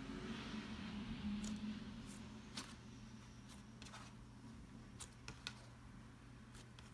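Cloud slime being handled: a soft crackly hiss as it is stretched and pulled apart in the first couple of seconds, then a handful of small sharp clicks and pops as fingers squish and press into it.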